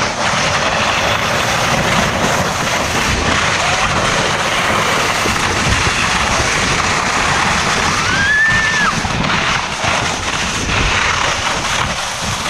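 Steady running noise of a vehicle carrying riders, with heavy wind buffeting on the microphone. About eight seconds in, a short whistle-like tone rises and falls once.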